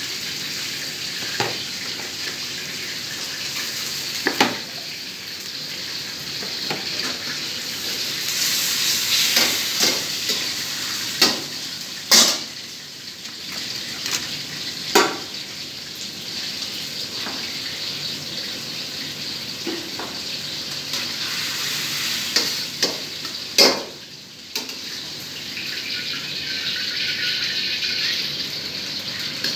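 Food frying in oil in a steel wok, a steady sizzling hiss that swells about a third of the way through. A metal ladle clanks sharply against the wok about six times.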